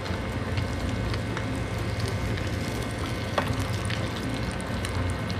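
Hot oil sizzling and bubbling around a starch-coated, scale-on white amadai (tilefish) fillet deep-frying in a small skillet, with scattered sharp crackles.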